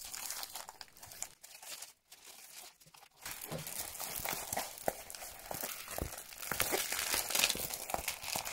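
A diamond-painting canvas sheet in its plastic cover film, crinkling and rustling as it is handled. It is nearly quiet for the first few seconds, and the rustling starts about three seconds in.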